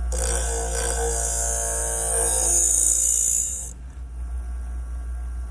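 Scissor sharpening machine grinding a clamped scissor blade: a steady motor hum under a hissing, whining grind. The grind stops about three and a half seconds in while the motor keeps running.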